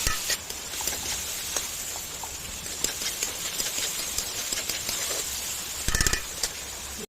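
Okra frying in a pan: a faint, steady sizzle with scattered small crackles, and a brief clink about six seconds in.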